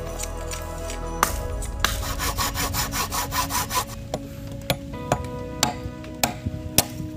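A large knife blade rasps in quick strokes across a green bamboo pole resting on a brick. About four seconds in, sharp knocks begin, about two a second, as the blade is struck with a wooden stick to cut into the bamboo.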